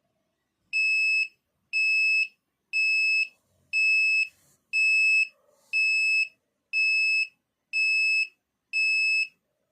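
Arduino alarm clock's buzzer sounding its alarm: a high-pitched beep about half a second long, repeating evenly once a second, starting just under a second in.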